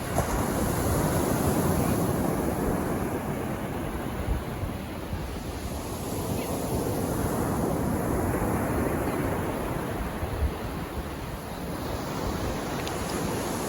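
Calm sea waves washing onto a sandy beach, a steady surf that swells and eases every few seconds, with some wind on the microphone.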